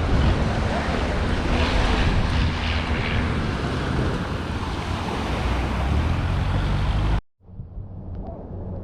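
Long-tail boat engine running amid wind and surf noise. The sound cuts off abruptly about seven seconds in, leaving quieter surroundings.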